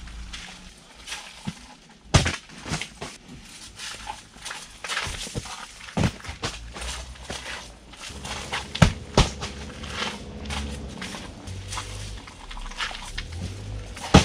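Camping gear being carried and set down: footsteps and a run of knocks, with several sharp thuds as plastic folding crates are put down and soft bags are tossed onto the tent floor.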